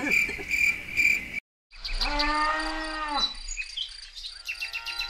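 Cow mooing: one long, drawn-out moo about two seconds in, and another shorter call near the end, with insects and birds chirping around it. Before it, crickets chirp steadily, and the sound cuts out for a moment.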